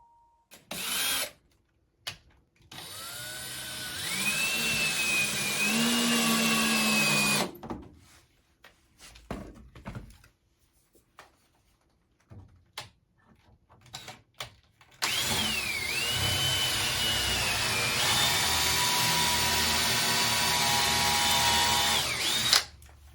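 Power drill running in two long stretches, a few seconds in and again from about halfway to near the end, its whine rising and dipping as it bites into the wood. Short knocks and taps come between the runs.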